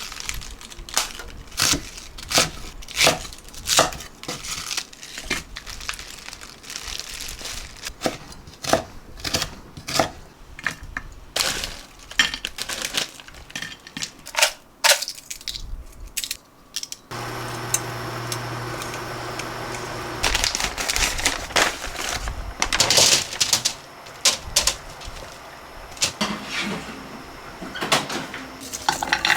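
Rapid clicks, taps and knocks of things being handled, then about 17 seconds in a machine with a steady hum switches on and keeps running while the clicking goes on over it.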